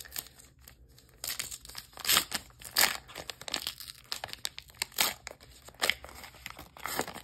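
Foil wrapper of a Flesh and Blood booster pack being torn open and crinkled by hand: a run of sharp crackles starting about a second in, with several louder rips along the way.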